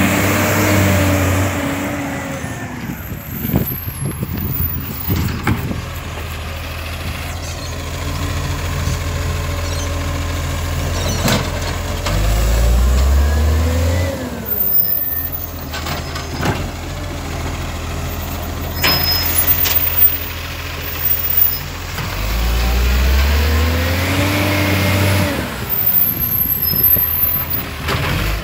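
Side-loading garbage truck's engine revving up and dropping back three times, with scattered knocks and clanks from the truck and its bin-lifting arm in between.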